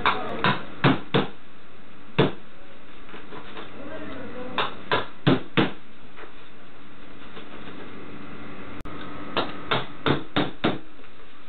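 A hammer drives a nail through layered paper into wood in short runs of quick strikes: four at the start, a single blow about two seconds in, four more around five seconds, and five near the end. A steady background hum runs underneath.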